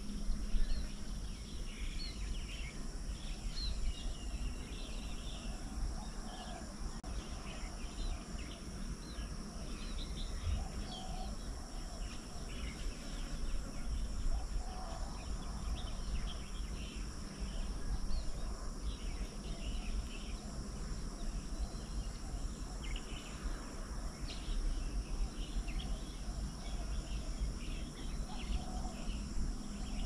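Outdoor ambience of wild birds chirping with many short calls, over a steady high insect drone and a constant low rumble.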